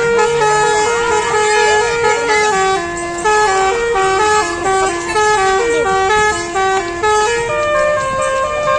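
Bus telolet horn, a multi-tone musical air horn, playing a long melody without a break. Steady notes step up and down, changing about every half second.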